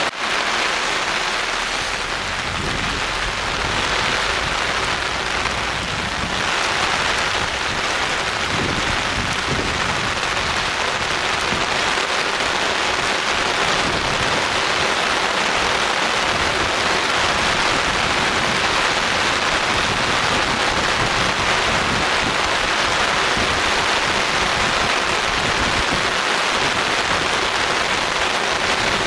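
Steady rain falling on surfaces, an even hiss of many drops.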